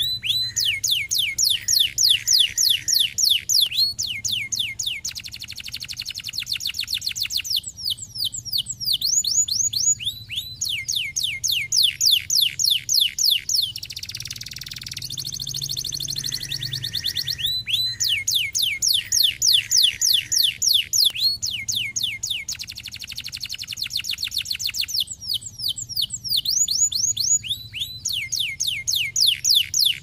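Canary singing: rapid rolls of repeated high notes, each sliding down in pitch, about six a second, in runs of a few seconds with short breaks between them. The same sequence of rolls comes round again about halfway through.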